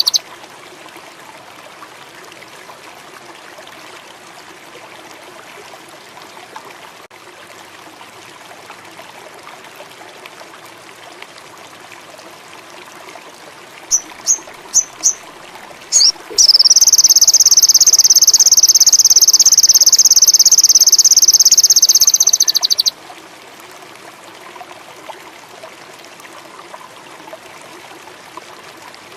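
Songbird sold as a 'sogon indigo' singing: four short high notes about halfway through, then a loud, rapid, high trill lasting about six seconds that stops abruptly. Underneath, a steady background of trickling water and insects.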